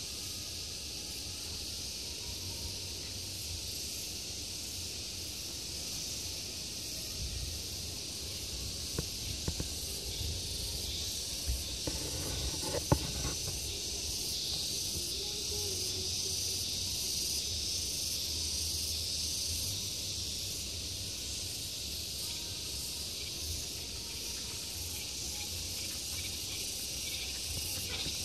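Insects chirring in a steady high-pitched outdoor chorus, with a low rumble beneath. A few soft knocks come around the middle, the sharpest about halfway through.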